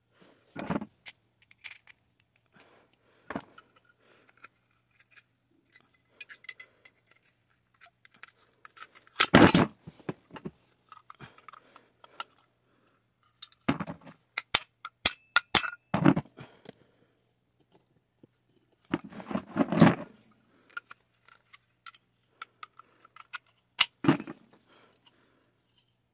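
Metal parts of a butane stove burner being handled: irregular clinks, scrapes and knocks with quiet gaps between. The loudest clatters come about nine, fourteen, twenty and twenty-four seconds in, with a few short ringing clinks near fifteen seconds.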